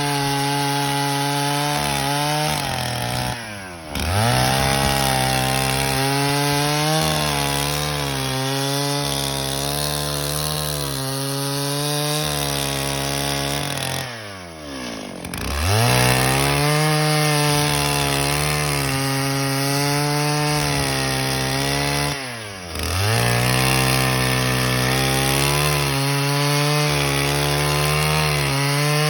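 Two-stroke chainsaw cutting through a eucalyptus trunk, running steadily at high revs. Three times the engine speed drops briefly and then climbs back up.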